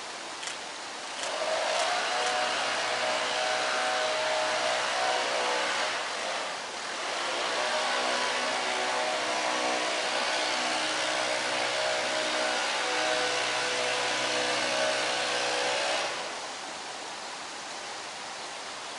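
A motor running steadily with a low hum under a rushing noise. It comes in about a second in, dips briefly about six seconds in, and stops about sixteen seconds in.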